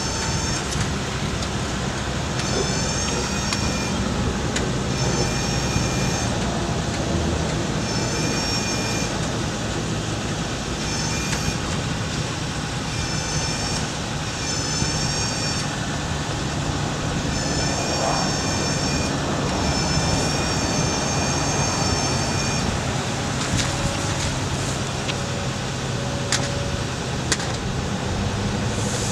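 Ford F550 bucket truck running steadily while the Altec AT237 aerial boom is operated hydraulically, with a high wavering whine that comes and goes every second or two.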